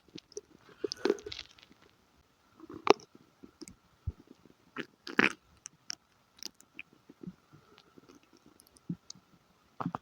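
Scattered small wet clicks and pops from a gurgling stomach, with quiet gaps between; the loudest come about three and five seconds in. A faint steady whine sits underneath.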